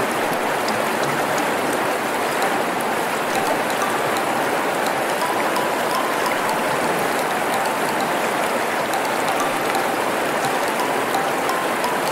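Steady rushing water with scattered faint drip-like ticks.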